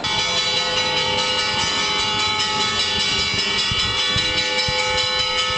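Church bells ringing a continuous peal: rapid, evenly repeated strokes with many overlapping ringing tones. The peal starts suddenly.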